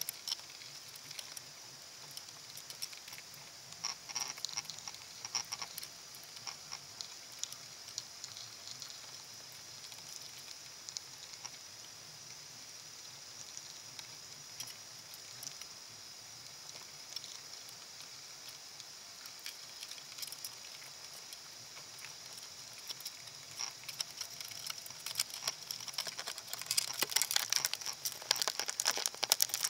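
Underwater crackle heard through a submerged camera: scattered clicks and pops over a steady high hiss, thickening into a dense run of louder clicks in the last few seconds.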